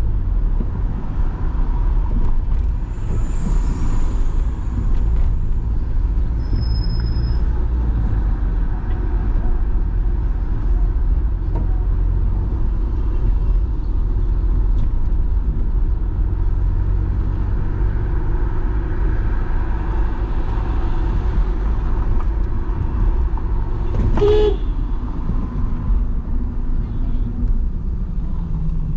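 Steady low rumble of car engines and tyre noise in city street traffic while driving, with a few thin high squeaks a few seconds in and a short car horn beep about three-quarters of the way through.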